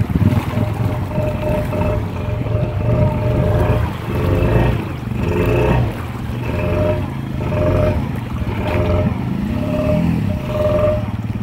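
Honda Foreman ATV engine running under load, its note swelling and easing about once a second as the throttle is worked, with one clear rise in revs near the end.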